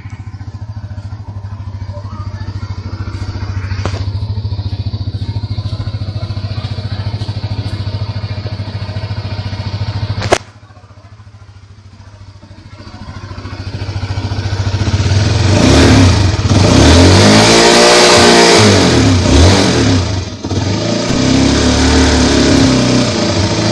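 Honda CBR150R's fuel-injected single-cylinder engine idling steadily. About ten seconds in there is a sharp click and the sound drops for a moment. The engine is then revved several times, its pitch rising and falling, and the revs are the loudest part.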